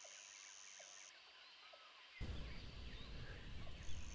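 About two seconds of near silence, then faint outdoor garden ambience with scattered small high chirps.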